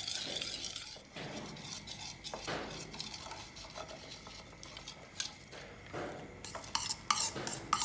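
A metal spoon stirs and scrapes in a ceramic bowl of sweet-sour salad dressing. Near the end come a run of light clinks as the spoon scrapes chopped shallots and chillies from a small bowl into it.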